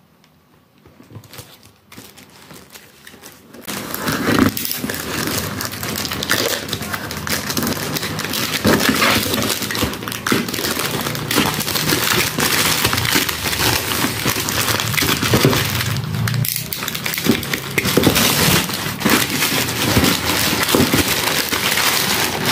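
Plastic courier mailer bag crinkling and crackling as it is cut with scissors and pulled open to get the shoebox out. It is quiet at first, and the crinkling starts about three and a half seconds in and goes on steadily.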